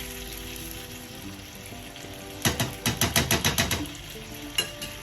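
A spoon stirring sauce in a pan, knocking quickly against the pan about ten times in a second and a half around the middle, then once more near the end.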